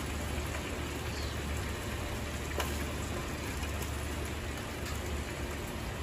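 Gas grill burning with open flames rising through the grates: a steady hiss and low rumble of fire, with a sharp crackle about two and a half seconds in.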